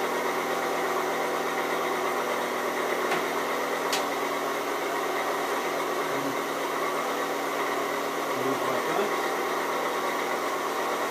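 Schaublin SV52 milling machine running with a steady hum, its table traversing under power feed. A single sharp click comes about four seconds in.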